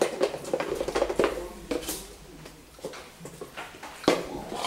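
A plastic lidded bowl is shaken, with a rapid rattling and clicking for about the first second. Plastic containers are then handled and set down on a table, with a few lighter knocks and a sharp knock about four seconds in.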